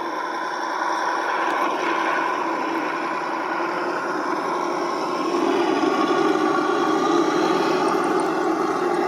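Simulated MAN V8 truck engine sound from an ESS-One sound module, played through the RC truck's small speaker with little bass. It runs steadily and grows louder from about halfway through, as under more throttle.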